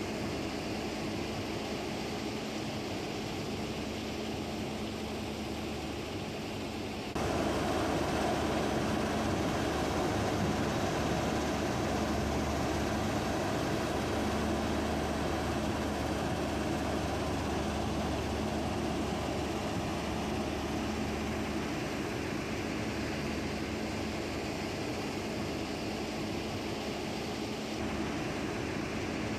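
Mobile crushing and screening line (jaw crusher, cone crusher and horizontal screener) running: a steady mechanical din with a low, even hum. It jumps louder about seven seconds in and eases back a little near the end.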